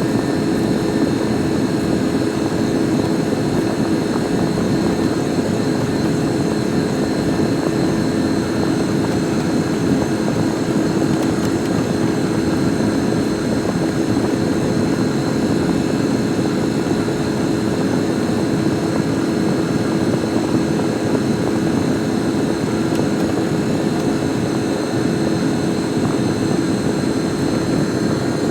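Engine of a snow-plowing machine running steadily under load as it pushes snow, a constant drone with a steady hum.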